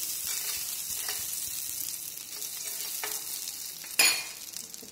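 Butter sizzling on a hot flat tawa while a spoon spreads it around. There are a few light scrapes, then a sharp clink of the spoon about four seconds in, and the sizzle fades near the end.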